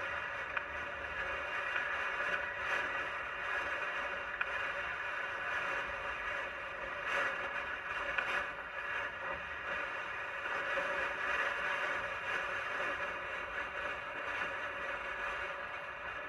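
Strong wind rushing over the microphone as a Sur-Ron electric dirt bike rides through it: a steady, even rush with faint steady tones running under it and a few small knocks.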